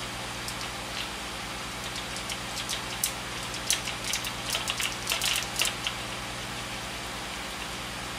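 Small crinkling and crackling handling noises from fingers working a small item, thickest from about three to six seconds in, over a steady low hum.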